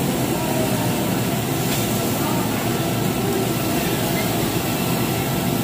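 Steady rushing hum of a Korean barbecue grill's exhaust duct and restaurant ventilation fans, with faint voices underneath.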